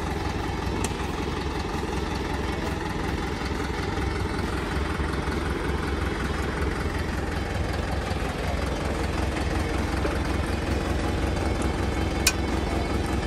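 New Holland 5630 tractor's diesel engine idling steadily while stationary. A single sharp click sounds near the end as the cultivator's frame is handled.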